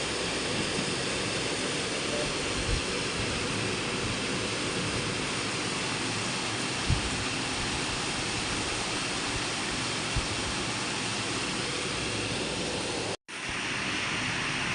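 Steady rain falling, heard as an even hiss with a few soft low bumps. It drops out for an instant near the end, then resumes.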